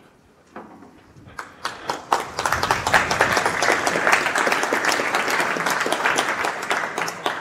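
Audience applauding: a few scattered claps at first, swelling into steady applause by about two and a half seconds in, then thinning out near the end.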